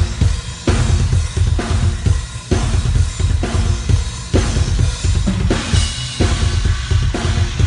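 Drum kit played in a steady beat: bass drum, snare and cymbals.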